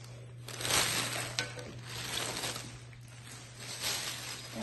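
Gift packaging rustling and crinkling as it is handled and opened by hand, with a few sharp ticks, loudest about a second in, over a steady low hum.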